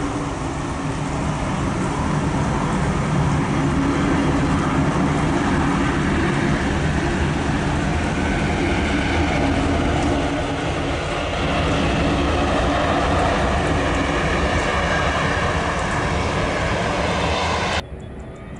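Jet engines of an Airbus A320 running steadily and loudly as the airliner rolls along a rain-soaked runway, mixed with a continuous hiss of spray and rain. The sound cuts off abruptly near the end.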